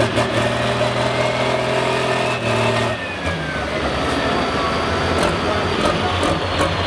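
Open-class pulling tractor's engine idling at the sled after its pull. About three seconds in, the steady engine note drops away into a rougher rumble, and a high whine falls slowly in pitch.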